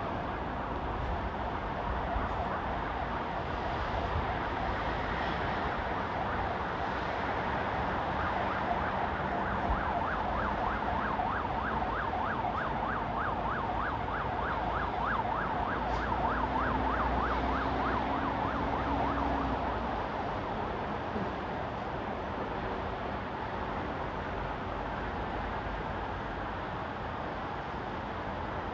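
Steady city road traffic. About eight seconds in, an emergency vehicle's siren comes in with a fast yelping warble, about five sweeps a second. It lasts roughly ten seconds, then fades back into the traffic.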